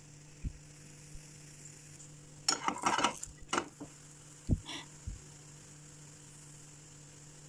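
Kitchen sounds at a non-stick frying pan where a pancake cooks on a low gas flame: a steady low hum, with a short burst of clattering and scraping about two and a half seconds in and a few single knocks over the next two seconds.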